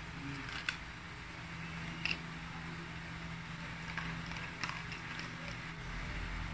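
A handful of light clicks and clinks as metal long-nose pliers pick up small bolts and tap against a plastic cup, over a steady low hum.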